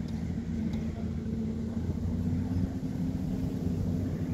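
A steady low motor hum holding one pitch, over a rough rumble of wind on the microphone.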